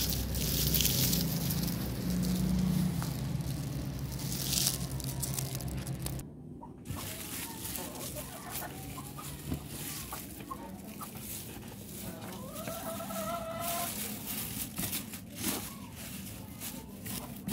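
Lemongrass leaves rustling and crackling as they are picked and handled. A hen clucks briefly about two-thirds of the way through.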